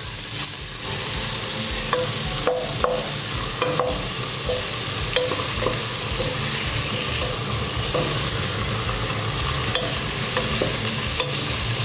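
Chicken pieces sautéing in oil with garlic and onion in a pot, sizzling steadily, while a wooden spatula stirs them, giving scattered short knocks and scrapes against the pot.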